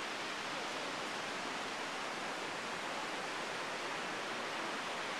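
Ocean surf making a steady, even hiss with no distinct wave breaks.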